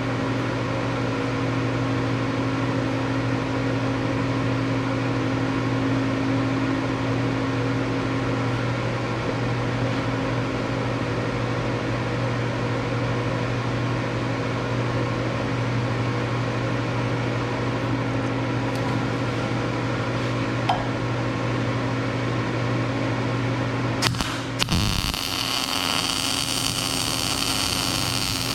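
Electric welder powered on, its transformer and cooling fan humming steadily at a low pitch. Near the end a short clatter, then a bright hiss joins the hum.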